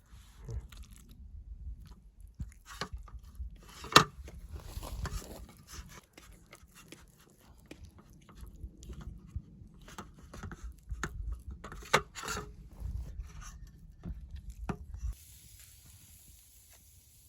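Irregular crunching, scraping and knocking of things being handled, with a sharp knock about four seconds in and another about twelve seconds in. About fifteen seconds in it stops suddenly and a faint steady hiss is left.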